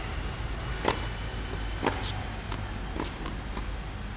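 A tennis ball bounced on a hard court, three sharp pats about a second apart with a few fainter knocks between, over a steady low background rumble.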